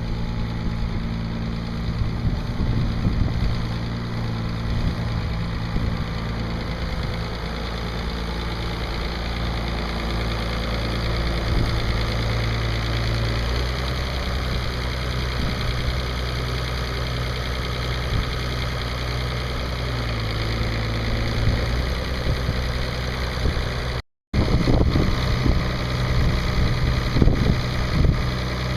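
International 3600 loader backhoe's D-282 six-cylinder diesel engine running steadily at idle, its pitch shifting slightly about halfway through. The sound cuts out for a moment near the end, and a few knocks join the engine after that.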